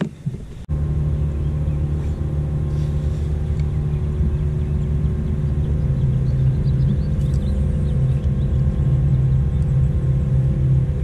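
A bass boat's motor running with a steady low hum and rumble that starts abruptly just under a second in.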